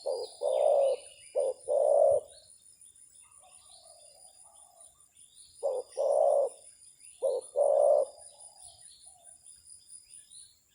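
Spotted dove cooing in two phrases, each made of short-then-long note pairs, with fainter coos between them. Small birds chirp and a steady high insect whine runs underneath.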